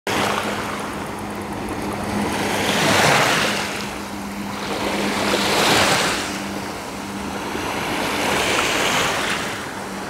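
Small waves of the Sea of Azov washing onto the shore, the surf swelling and falling back about every three seconds. A faint steady hum runs underneath.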